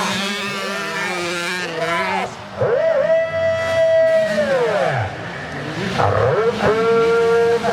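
Several racing dirt-bike engines revving. Over the first couple of seconds a few overlapping engine notes rise and fall. About two and a half seconds in, one bike climbs sharply in pitch, holds a high steady note for about a second and a half, then drops away as the throttle is rolled off. Another climbs and holds near the end.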